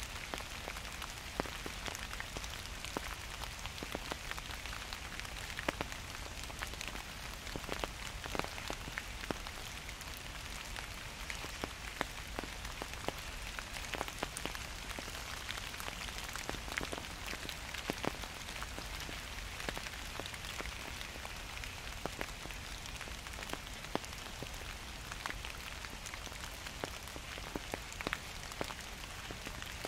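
Gentle steady rain falling, an even hiss scattered with many close, sharp drops striking surfaces, over a low steady rumble.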